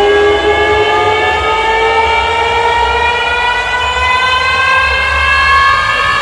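Truck-mounted carnival sound system (sound horeg) playing a bass-heavy track: a slowly rising, siren-like synth tone rich in overtones over deep, pulsing bass.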